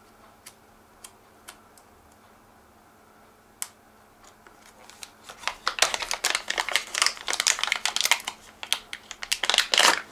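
Metallized anti-static bag crinkling as it is handled and opened. There are a few scattered clicks at first, then dense crackling from about halfway through.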